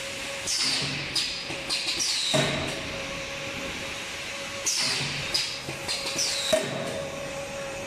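Paper tray forming machine running: a steady hum, with clusters of clacks and short falling hisses from the forming press recurring about every four seconds.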